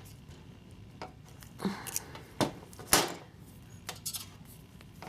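Pliers crimping the tabs of a small metal alligator clip onto a wire: about five separate light metallic clicks and squeezes, the loudest about three seconds in.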